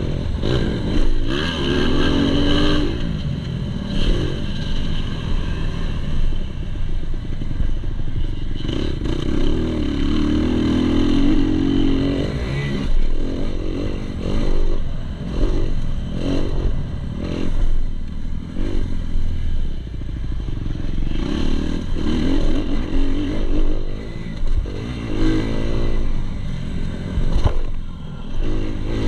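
2019 Kawasaki KX250's single-cylinder four-stroke engine, heard from on the bike, revving up and dropping back again and again as it is ridden hard over a motocross track, with clattering knocks from the bike over the bumps.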